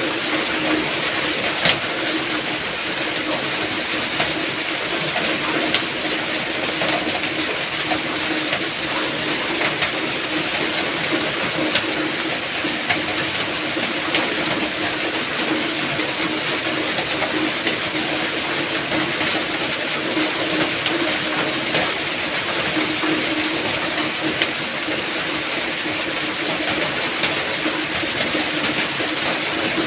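Steady, heavy rain falling, an even hiss with a few sharper drop hits scattered through it.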